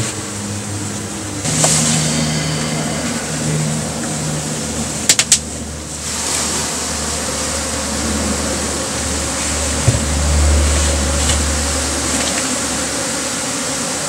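A colony of honey bees buzzing in a steady hum around their exposed comb as it is cut out and lifted, disturbed by the removal. A few quick sharp clicks about five seconds in.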